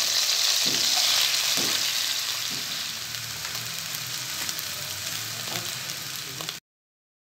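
Food sizzling in hot oil in a frying pan: chicken strips frying, then rice and chopped vegetables being stir-fried with a wooden spatula, with a few short spatula strokes. The sizzle is loudest in the first two seconds, eases off after about three, and cuts off suddenly near the end.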